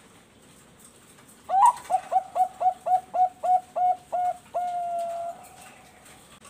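Zebra dove (Bangkok-strain perkutut) singing one full coo phrase: a rising opening note, a quick run of about eleven short even coos at roughly four a second, then one long held closing note.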